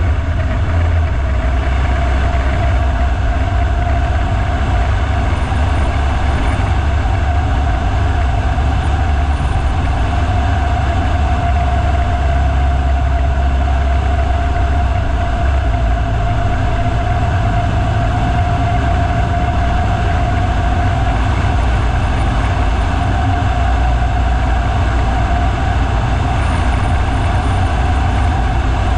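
Steady engine and road noise of a vehicle driving up a mountain road: a deep, constant rumble with a steady hum above it.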